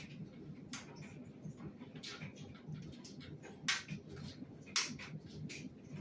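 LG clothes dryer running near the end of its cycle, with the Cool Air stage lit and one minute left: a steady low rumble of the turning drum with irregular clicks and ticks from the tumbling load, two of them louder a little past halfway.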